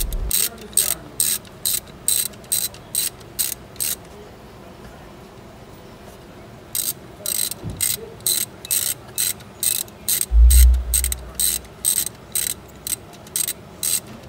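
Hand ratchet clicking in quick, even strokes, about three a second, while adjusting the alternator to tension the serpentine belt; the clicking pauses for about three seconds partway through. A dull low thump about ten seconds in is the loudest sound.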